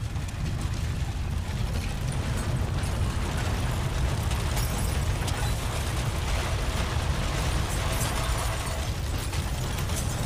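Earthquake shaking in an underground parking garage: a continuous low rumble under dense rattling and clicking from parked cars and garage fittings being shaken.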